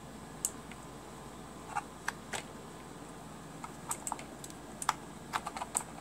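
Scattered sharp clicks and clacks from the Redragon Indrah mechanical keyboard as it is handled and turned over, about a dozen at irregular intervals, bunched together in the second half.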